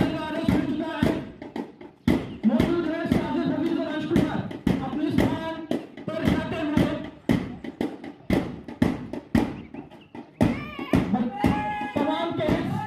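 A bass drum beaten at a steady marching pace, about two strokes a second, with a voice calling over it.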